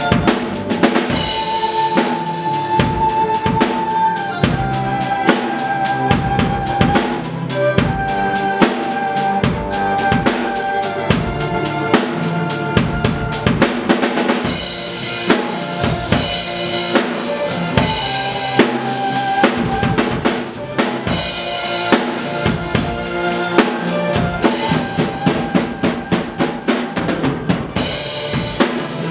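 Drum kit played in a steady rock beat with bass drum and snare strokes, along to a recording of the song with a held melody line over it.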